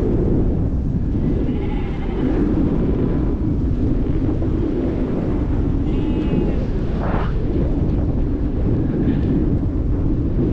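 Strong wind buffeting the microphone, a steady low rumble throughout, with a few faint, short, distant calls.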